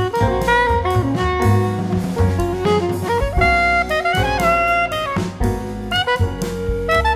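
Jazz background music: a saxophone melody over a drum kit.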